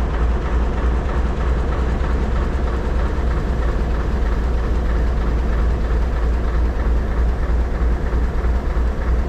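ALCO DL531 48 class diesel locomotives running, a steady low engine drone with no change in pace.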